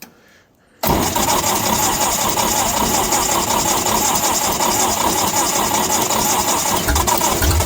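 Lincoln SA-200 welder's cold four-cylinder gasoline engine being cranked over by its starter, in freezing weather with brake cleaner sprayed in as starting fluid; it starts suddenly about a second in and goes on steadily without catching, with heavier low pulsing near the end.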